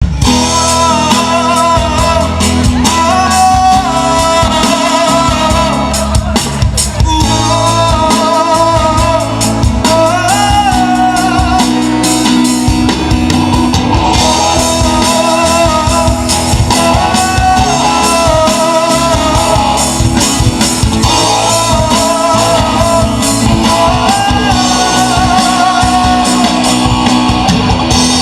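Live band music played loud and without a break: drum kit, guitar and a wavering lead melody over a steady low bass line.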